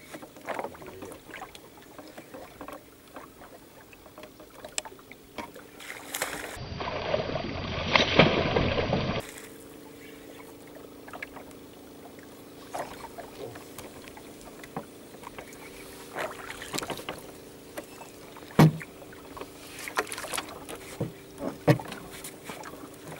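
Fishing from a small boat: scattered clicks and knocks from the boat and tackle, a louder rushing noise for about three seconds near the middle, then a faint steady hum with one sharp knock later on.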